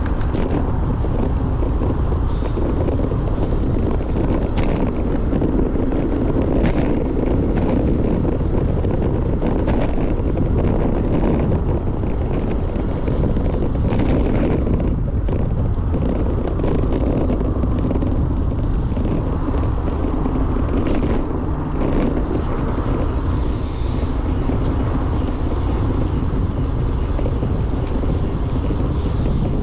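Steady wind rush buffeting a GoPro action camera's microphone while riding a road bike at speed, with a few faint short knocks in the mix.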